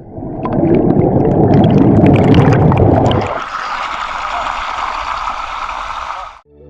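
Rushing water of a waterfall: about three seconds of deep, churning noise with splashes, then a cut to a steadier, higher hiss of falling water that stops abruptly near the end.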